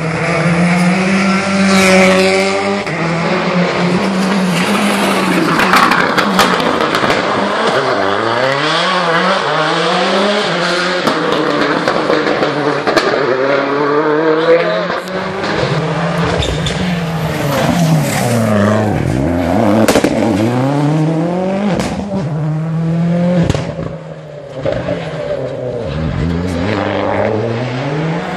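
Rally cars at speed on a tarmac special stage, engines revving hard and dropping repeatedly through gear changes and braking, with tyre squeal and a few sharp exhaust cracks.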